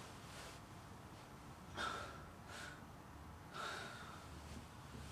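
A man's faint breathing: three short breaths or sighs, the first a little under two seconds in and the last near four seconds.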